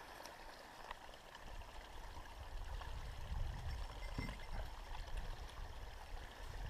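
Small mountain stream trickling faintly and steadily, over a low rumble.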